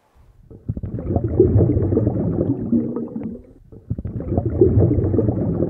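Water bubbling and gurgling in two long surges of about three seconds each, with a short dip between them.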